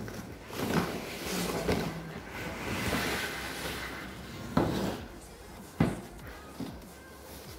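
Cardboard box sliding out of an outer shipping carton with a scraping rustle, then two sharp knocks about a second apart as the cardboard is set down on a table.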